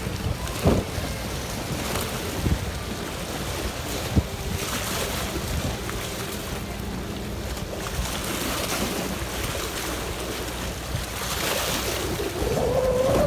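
Small waves washing and splashing against the rocks of a stone breakwater, with strong wind buffeting the microphone as a low rumble.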